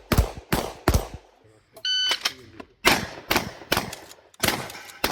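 A string of about eight shotgun shots fired in quick succession, each echoing briefly, with a pause about two seconds in where a short electronic beep sounds.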